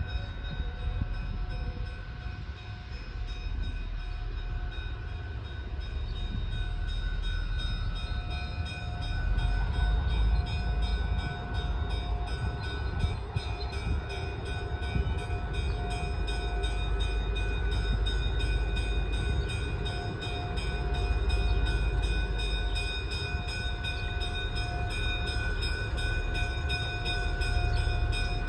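Diesel locomotive of an EMD E5A streamliner (Burlington's "Silver Pilot") running as it rolls slowly past: a steady engine rumble that swells and eases, with a steady high whine held over it.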